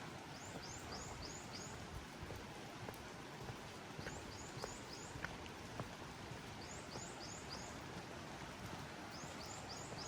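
Steady rain hiss with scattered drops ticking, while a bird sings a short phrase of four or five quick high notes, repeated four times a couple of seconds apart.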